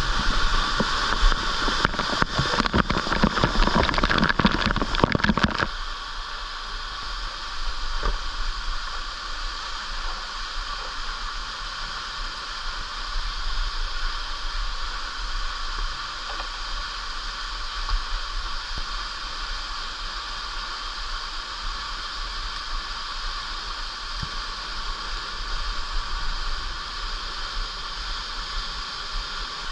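Rushing water of a jungle stream and waterfall, a steady noise that is louder and rougher for the first six seconds, then settles to an even rush.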